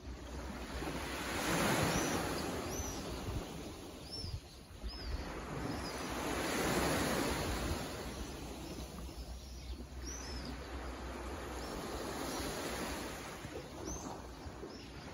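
Small waves washing onto a sandy beach: two slow surges in the first half, then a steadier wash. Short high bird chirps come now and then over the top.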